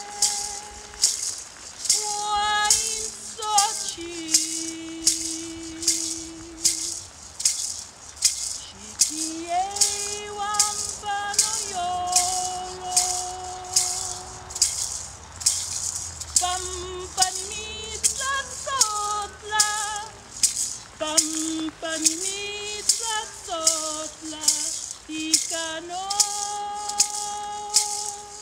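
A woman singing long held notes that slide between pitches, keeping time with a steady beat of shakes on a hand-held gourd rattle.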